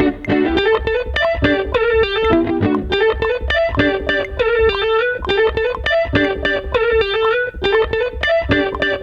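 Instrumental beat: a looping melody of short, quickly repeating notes over an evenly pulsing low bass, the pattern repeating about every second and a half.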